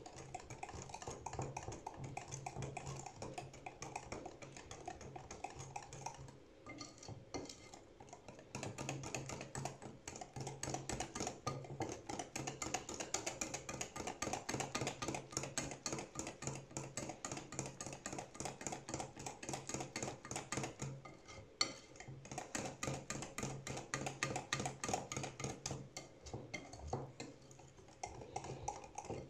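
A mixture being beaten by hand in a bowl: a fast, continuous run of clicking strokes of the utensil against the bowl, stopping briefly a few times.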